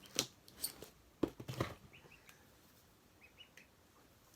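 Several sharp clicks and rustles of a cardboard parcel being handled as its tape is cut, with a few short, faint duckling peeps in between.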